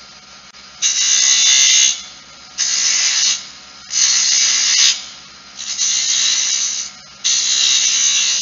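Spindle gouge cutting a small cove into a wooden spindle turning on a lathe: five short hissing cuts, each just under a second long and about one every second and a half, over the lathe's faint steady hum.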